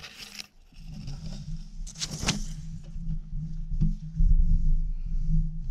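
Handling noise from a handheld camera brushing through ferns: two short rustling, scraping bursts, one at the start and one about two seconds in, over a steady low rumble that grows louder about four seconds in.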